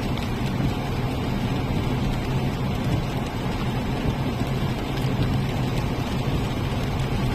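Steady engine drone with a low hum and a constant rushing noise, with no change in pitch or level.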